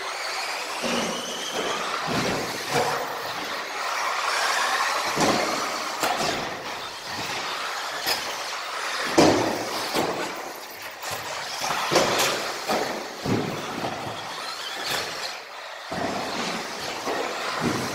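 Radio-controlled model car running on a carpet track: its motor whine rises and falls with the throttle over the hiss of its tyres, with sharp knocks as it lands off jumps and hits the kerbs, the loudest about nine and twelve seconds in.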